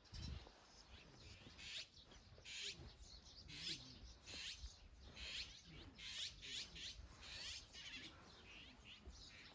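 Small birds chirping, faint, with short high calls about once a second, many sliding down in pitch.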